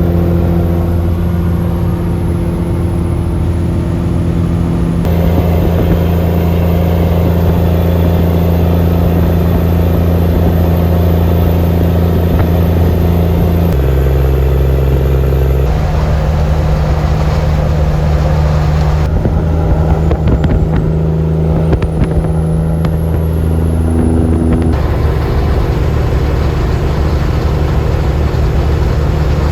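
A Kenworth W900 semi truck's Cummins N14 diesel engine pulling down the road with a steady low drone. Its pitch jumps to a new level several times.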